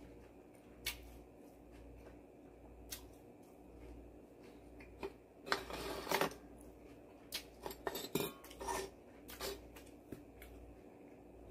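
Faint, scattered clicks and knocks of small objects being handled on a tabletop, with a short scraping noise about five and a half seconds in and a quick run of clicks around eight seconds.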